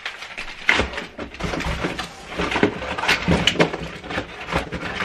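Hands rummaging through a box of packaged soft-plastic fishing lures: plastic packets rustling, with scattered clicks and a few dull knocks.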